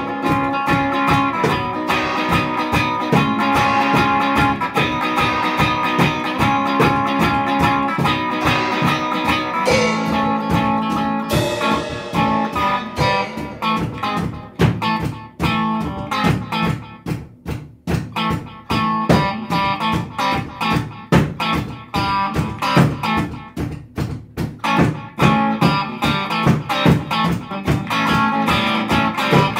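Psychedelic rock instrumental: electric guitars playing held chords and lines over a steady beat. About halfway through the playing turns choppy, with short stabs and brief gaps, before settling back into a steady chord pattern near the end.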